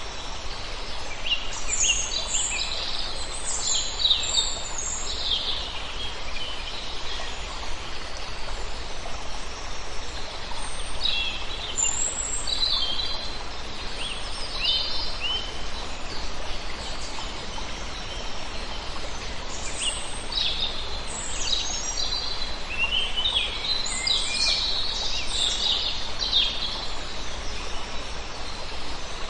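Wild birds singing in three spells of quick, high chirps and trills over a steady rush of flowing water.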